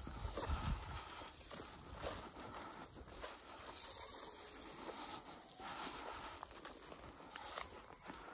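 Footsteps crunching and swishing through dry, matted grass at a walking pace, with low rumbles of wind on the microphone. A few short high chirps come about a second in and again near the end.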